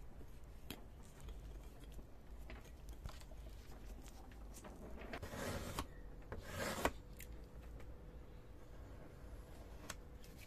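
A small metal spatula scraping filler putty, two short scrapes about five and six and a half seconds in, the second ending in a sharp click, with faint small taps and scratches around them.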